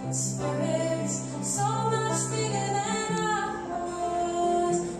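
Live acoustic folk performance: a woman singing held notes, accompanied by acoustic guitar and banjo.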